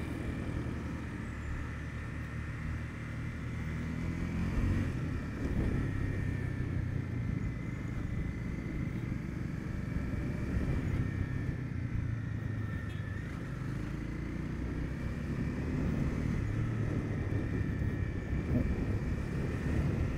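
Honda CB300F's single-cylinder engine running as the motorcycle is ridden, its note rising and falling with the throttle.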